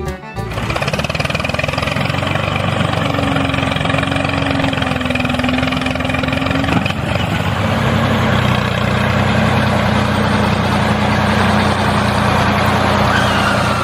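A motor running steadily with a noisy hum; its held tone steps down in pitch about halfway through, and it cuts off abruptly at the end.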